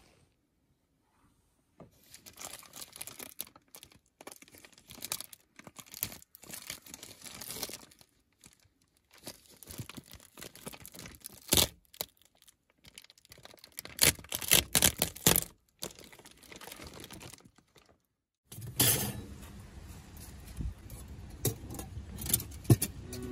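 Woven plastic tarp sheet crinkling and rustling with sharp crackles as it is handled and pulled aside from a car window. After a break near the end, a steadier background hiss with a few light clicks.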